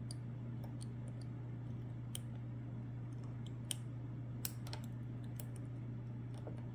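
Light, irregular metallic clicks of a lock pick working the pin stacks inside a Lockwood Twin padlock's keyway, with two sharper clicks a little past the middle, over a steady low hum.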